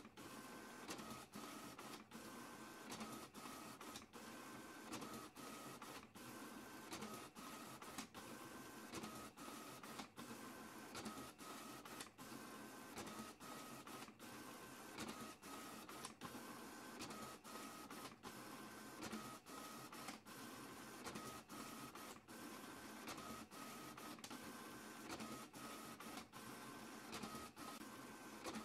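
A printer running continuously, feeding and printing pages that stack in its output tray. It makes a faint steady whir with short, regular breaks, and a motor whine that switches pitch every second or so.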